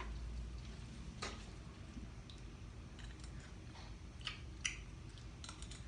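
A few faint, scattered clicks and light taps of kitchen utensils against cookware, several in quick succession near the end, over a low steady hum.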